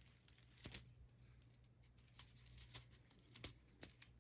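Faint crinkling of the thin aluminum foil needles on an aluminum Christmas tree branch as they are pinched and straightened by hand, with a few sharper crackles, the loudest about three-quarters of a second in.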